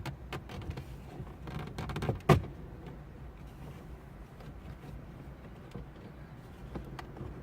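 Small clicks and knocks of parts being handled and unfastened during hand work on a car's interior dash, with one sharp snap about two seconds in.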